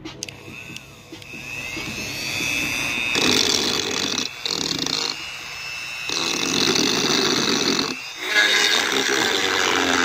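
Dremel rotary tool running with a high whine, its grinding bit cutting into the plastic dash trim to widen the cigarette-lighter opening. The grinding comes in loud bouts with short let-ups, the longest about five seconds in.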